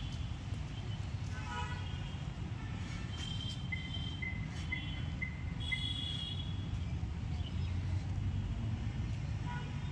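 Outdoor city ambience: a steady low rumble of distant traffic with faint far-off voices. In the middle comes a short run of about six evenly spaced high beeps.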